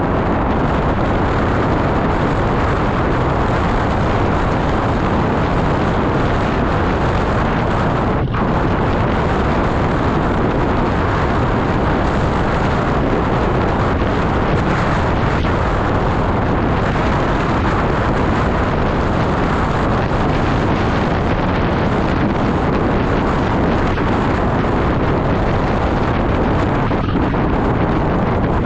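Steady wind rush buffeting the microphone of a handlebar-mounted action camera on a road bike going fast downhill.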